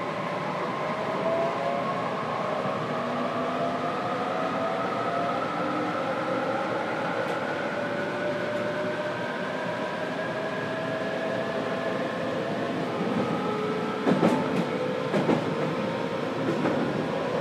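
JR Kyushu 817 series 3000-subseries electric train with Hitachi IGBT VVVF inverter, heard from inside motor car MoHa 817-3002: the inverter and traction motor whine rises slowly in pitch as the train accelerates, over a steady running rumble. A short run of sharp knocks from the wheels over the track comes near the end.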